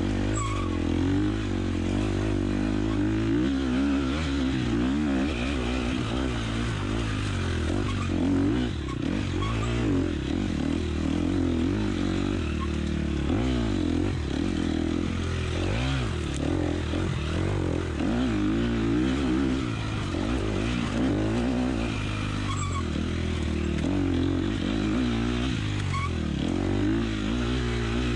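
Dirt bike engine heard on board, revving up and down without pause as the throttle is worked through a race section.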